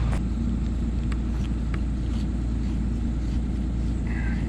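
An engine running steadily at idle, a low even hum, with a few faint clicks and a short high chirp near the end.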